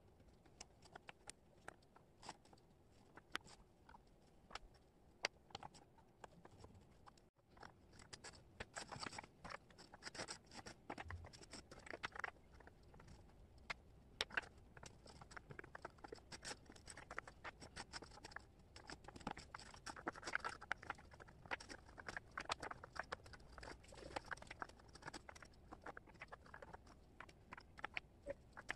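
Wooden jigsaw puzzle pieces being handled on a cork board: a quiet, dense, irregular patter of small clicks and taps as pieces are picked up, dropped and slid, with light rustling.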